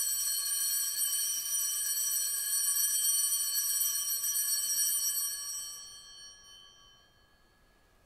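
Altar bell ringing at the elevation of the chalice during the consecration, a bright ring that holds steady for about five seconds, then fades away over the next two.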